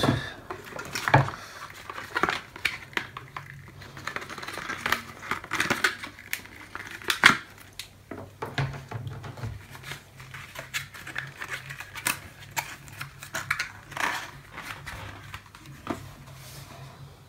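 White cardboard packaging and a boxed camera being handled on a desk: scattered taps, knocks and rustles as box trays are lifted and set down and a cable is moved. The sharpest knock comes about seven seconds in. A faint low hum runs underneath.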